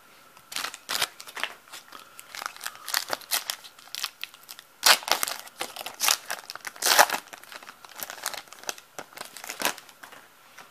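Foil wrapper of a 2016 Donruss Optic baseball card pack crinkling and tearing as it is ripped open by hand. It makes an irregular run of sharp crackles, loudest around the middle.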